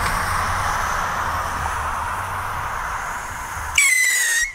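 Whistling screamer rocket: a steady hiss while its fuse burns, then, about three and a half seconds in, a loud, high, shrill whistle that dips slightly in pitch as the rocket lifts off.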